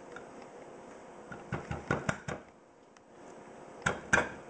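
Thick fixed-blade knife being driven into a metal can lid: sharp metal-on-metal knocks, a quick run of about five about halfway through and two louder ones near the end.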